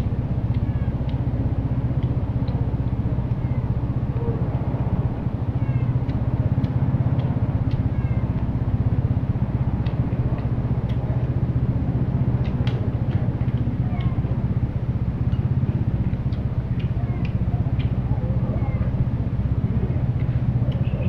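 A steady low mechanical hum, with light clicks of clam shells being handled and opened while eating.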